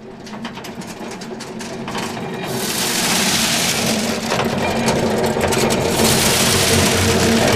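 Farm machinery running, growing steadily louder: a rapid mechanical clatter over a steady engine hum, with a dense hiss building from about two seconds in.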